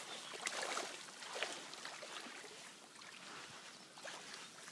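Faint, irregular splashing and lapping of shallow river water.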